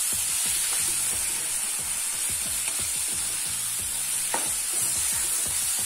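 Onion-tomato masala sizzling in a nonstick frying pan while being stirred and scraped with a wooden spatula: a steady sizzle with repeated scraping strokes. The freshly added chilli powder, garam masala and turmeric are being sautéed into the onions.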